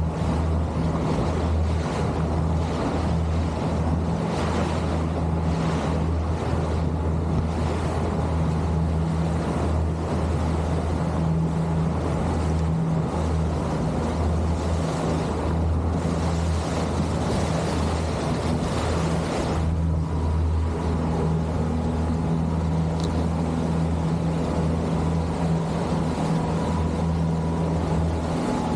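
Boat motor running steadily at trolling speed, a constant low hum mixed with the rush of water and wind.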